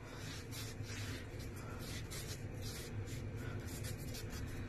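Cotton cloth rubbing over wet ceramic wall tile by hand in quick, irregular wiping strokes, faint and scratchy.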